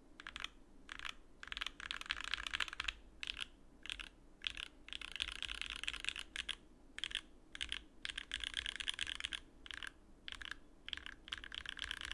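Typing on a custom Alice-layout mechanical keyboard with an acrylic plate, lubed and filmed SoHo (Durock) linear switches and GMK Honeywell keycaps: fast runs of keystrokes broken by short pauses.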